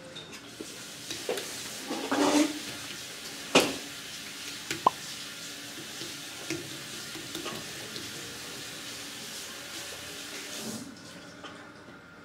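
Wet clay and water being worked by hand on a spinning pottery wheel while the clay is coned: a steady wet hiss with a few sharp splats and squelches, the loudest about three and a half seconds in. The wet sound thins out near the end.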